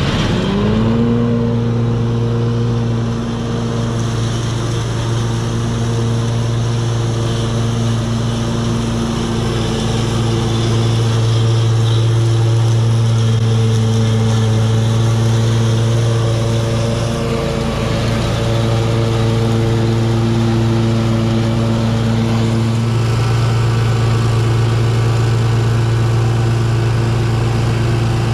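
Engine of a Gravely 52-inch zero-turn mower revving up over about the first second, then running steadily at high throttle with the blades engaged, cutting tall grass.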